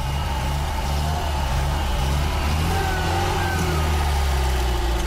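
Engine of a classic Lada sedan, weighed down by five stacked flywheels, running steadily under throttle while the car struggles for traction in snow with one wheel spinning.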